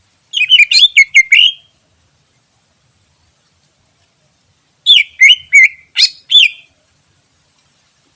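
Greater green leafbird (cucak ijo) singing wild: two short phrases of quick, sweeping chirped notes, about five notes each, a few seconds apart.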